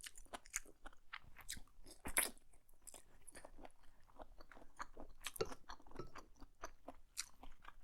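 A person chewing a mouthful of mushrooms close to the microphone: faint, irregular mouth clicks and smacks, a little louder about two seconds and five seconds in.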